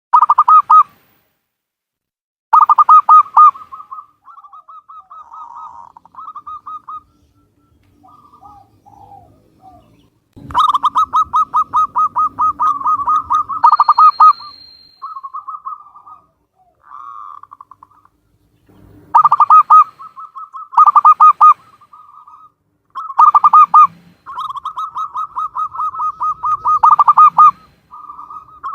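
Zebra dove (Javanese perkutut) cooing: repeated phrases of rapid, evenly pulsed coo notes, some loud and some softer, with short pauses between them.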